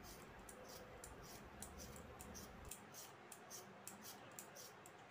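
Faint, quick scraping strokes of a hand-held vegetable peeler taking the skin off a raw potato, about three strokes a second.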